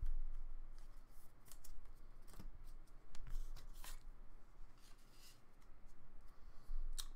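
Topps baseball cards being handled: cards slid and flicked against one another in an irregular string of short, crisp scrapes and flicks.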